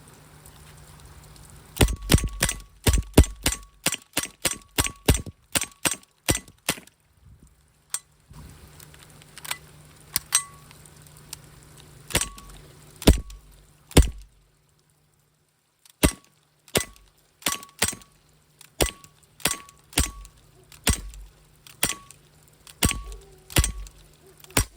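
Umarex Walther P99 CO2 blowback airsoft pistol firing, each shot a sharp crack with the metal slide cycling. A quick string of about a dozen shots comes first, then slower single shots, about one a second.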